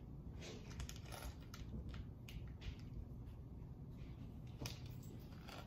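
Small plastic Lego pieces being handled, clicking and clattering against each other and the tabletop in an irregular run of light clicks.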